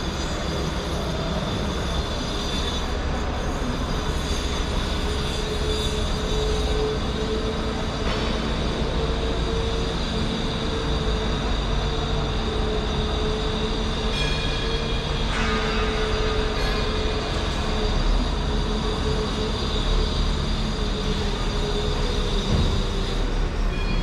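Steady, unchanging mechanical rumble with a held hum.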